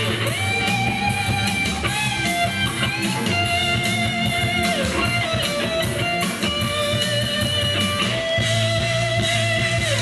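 Instrumental break in a pop song, with lead electric guitar playing the melody in held, sliding notes over bass and a steady beat.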